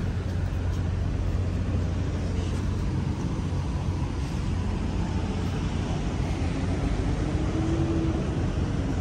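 Steady low rumble of motor vehicle noise, even in level throughout.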